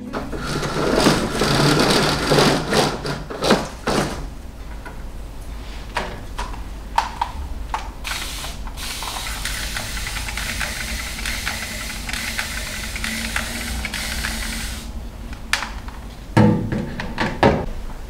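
Water poured from a glass watering can onto potted plants, a steady trickle for several seconds in the middle, between bursts of household handling noise and a few sharp clicks.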